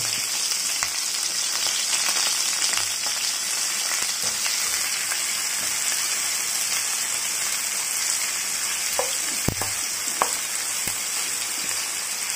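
Sliced onions sizzling steadily as they fry in hot oil in a non-stick pan, stirred with a wooden spatula, with a few sharp knocks of the spatula against the pan about three quarters of the way in.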